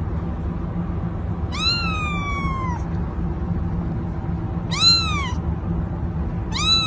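Kitten meowing three times in high cries that rise and then fall. The first is drawn out for over a second and the other two are short, over a steady low background hum.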